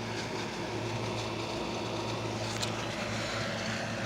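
A steady low mechanical hum under constant background noise, with one short high tick about two and a half seconds in.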